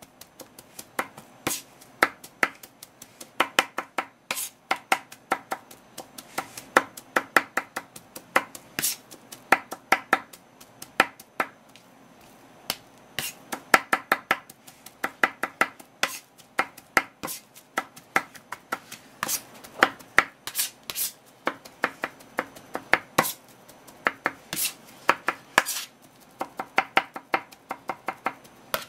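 Kitchen knife chopping boiled okra finely on a paper-covered wooden cutting board: quick runs of sharp taps with short pauses between. The okra is being minced into a sticky paste.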